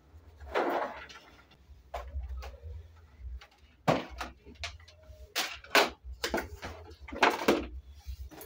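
Several knocks and bumps as a laptop and other things are handled and set down on a small wooden table and a chair is moved, over a low steady hum.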